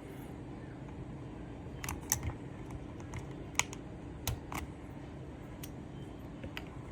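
Mechanical keyboard clicking and clacking: about ten sharp, irregular clicks, sparser than steady typing, with the loudest two a second or so apart.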